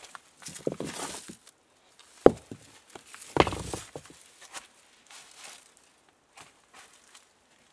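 Rustling and irregular knocks of stones and dry debris being handled on a rocky floor. The sharpest knock comes a little over two seconds in, and a longer rattle follows about a second later.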